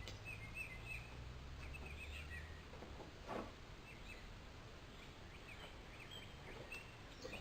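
Faint chirping of small birds, short high chirps scattered through, over a low background hum that fades out about two and a half seconds in.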